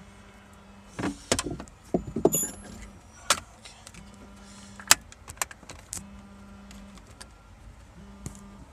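Sharp metallic clinks and clicks of hand tools and cable hardware as a wrench works the battery cable connections, scattered through, the loudest about three and five seconds in. A faint low hum comes and goes underneath.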